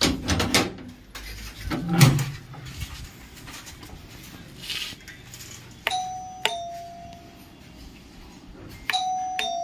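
Electric doorbell chime sounding a two-note ding-dong twice, about three seconds apart, each note ringing on and fading. Before it, in the first two seconds, come a few loud knocks and clanks, the loudest about two seconds in.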